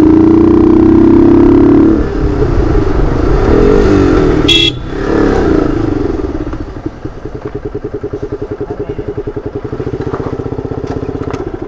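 Motorcycle engine running loud and slightly climbing in pitch, with a short horn beep about four and a half seconds in. The engine then settles to low revs with an even putting beat, and the sound drops away just before the end.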